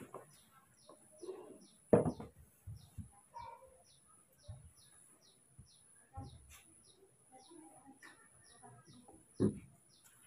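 A small bird chirps steadily, short high chirps about three a second, over a faint steady high whine. Two sharp thumps stand out, one about two seconds in and one near the end.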